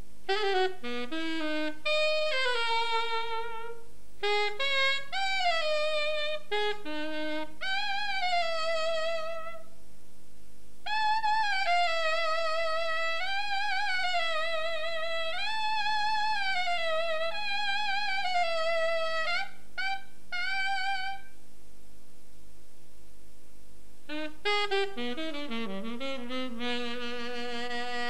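Saxophone playing a slow melody with vibrato, in phrases separated by short pauses. The last phrase falls to a long held low note near the end.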